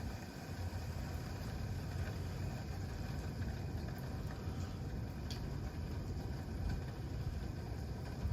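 Campfire burning, with a few faint crackles and pops over a steady low rumble.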